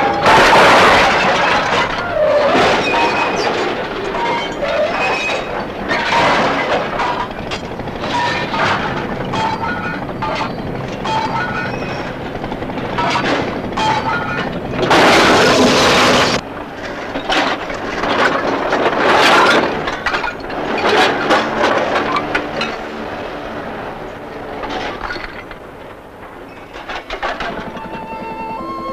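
Scrap iron crashing and clanking: many sharp metal impacts and cracks, with two long loud crashes of tumbling scrap, one at the start and one about fifteen seconds in.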